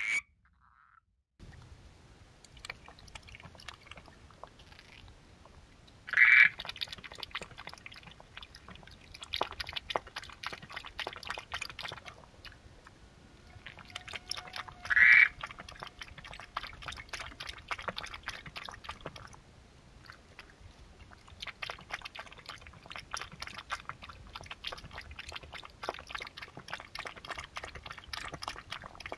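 A small whiskered mammal nosing and brushing against the trail camera, giving a steady run of close scratching and rustling clicks. Two short, louder calls stand out, about six and fifteen seconds in.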